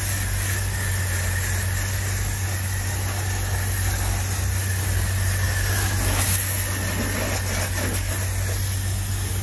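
Pressure washer running. Its motor-pump gives a steady hum, under the hiss of the high-pressure water jet spraying a car's bodywork and wheel.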